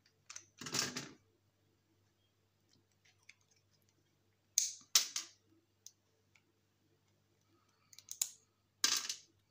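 Pliers working small metal parts on a sheet-metal electronics chassis: a handful of short, sharp clicks and scrapes, the loudest pair about halfway through.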